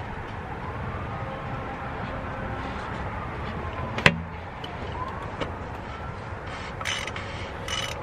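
A siren wailing faintly in the distance, its pitch slowly rising and falling, over a steady low rumble. A single sharp metallic click about halfway through, with a few lighter clicks near the end.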